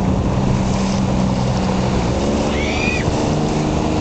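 Motorboat engine running steadily under wind and water noise. Its note shifts as a second engine tone comes in about halfway through, and there is a short high-pitched cry a little later.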